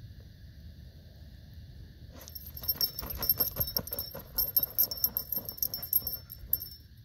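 A Siberian husky digging in dry, gravelly sand with its front paws, making rapid scraping strokes about five a second, with metal jingling from its harness. The digging starts about two seconds in and stops shortly before the end.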